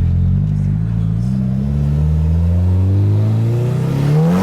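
Nissan SR20DET turbocharged 2.0-litre four-cylinder pulling under acceleration. The engine pitch rises slowly and steadily, then climbs sharply near the end as the revs build.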